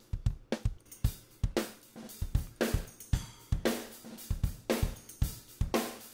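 Raw acoustic drum-kit recording playing back: the close snare mic with the room and overhead mics added, so kick, snare and cymbals sound as a full kit in a steady beat with about two snare hits a second. The rooms and overheads are what turn the thin, "dinky" direct snare into a full drum sound.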